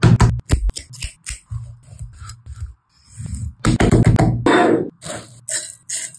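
A quick run of sharp clicks, taps and thuds from handling fish and utensils, edited into a rhythm over low thumping, with a short pause about three seconds in.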